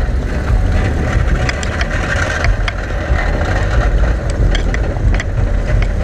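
Volkswagen Parati 1.6 AP driving along a dirt road, picked up by a microphone mounted low on the car's side: a steady low rumble of wind and road noise over engine and tyre sound, with scattered sharp ticks.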